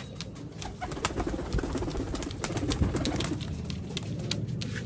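Kasuri pigeons cooing in a loft, a low rolling coo swelling from about a second in for a couple of seconds. Scattered sharp clicks run through it.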